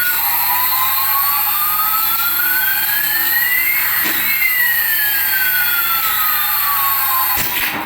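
A jet airplane sound effect: a jet whine over a rushing hiss rises steadily in pitch for about four seconds, then falls back just as steadily, like a plane passing by. It cuts off shortly before the end.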